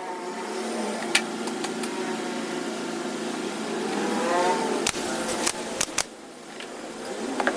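A small power-tool motor running steadily with a slightly wavering pitch, with several sharp clicks or knocks. It eases off briefly near the end.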